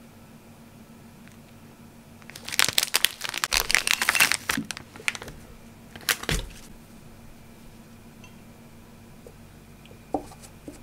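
Thin plastic snack wrapper crinkling loudly as a packaged scone is unwrapped, about two to five seconds in, then another short crinkle with a soft thud around six seconds. Near the end a light knock as a paper coffee cup is set down.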